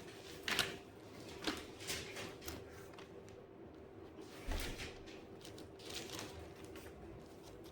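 Faint scattered rustles and soft knocks over a steady low hum, with one slightly louder knock about halfway through.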